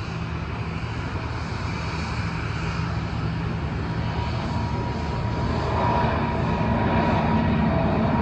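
Jet aircraft engines running on the runway: a steady rush of jet noise that grows louder about six seconds in, joined by a steady whine.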